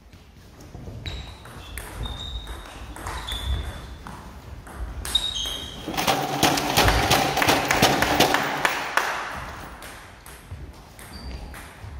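Table tennis doubles rally: the plastic ball clicking off bats and table, some hits ringing with a short high ping. About six seconds in, a few seconds of rapid clapping and voices as the point ends.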